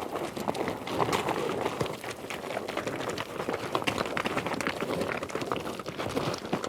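Galloping horse hooves: a dense, continuous run of irregular hoofbeats with no break.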